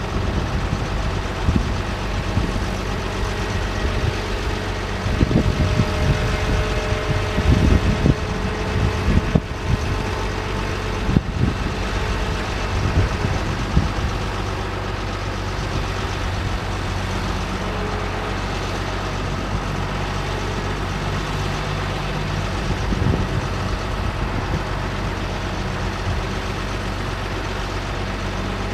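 2006 GMC C7500 aerial truck's engine running steadily at idle, with irregular knocks and clunks between about five and fourteen seconds in and a faint steady whine in the first half.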